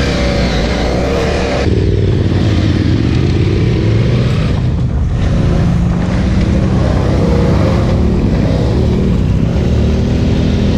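BMW F800 GS parallel-twin engine running as the bike is ridden along a dirt track, the engine note rising and falling with the throttle. The sound changes abruptly about two seconds in.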